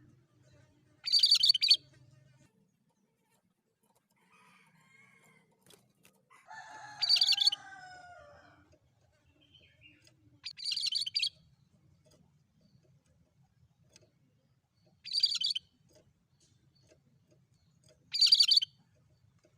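Cucak kerinci songbird giving short bursts of high chirping song, four times, several seconds apart. About seven seconds in there is a longer, lower call that falls in pitch.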